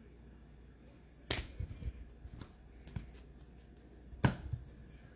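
A few sharp taps and clicks: trading cards and their plastic holders being handled and set down on a table. Two stand out, one about a second in and one near the end.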